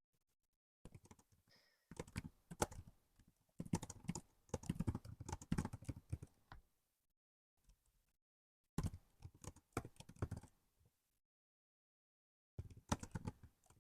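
Typing on a laptop keyboard in irregular bursts of key clicks, stopping for a second or two between runs.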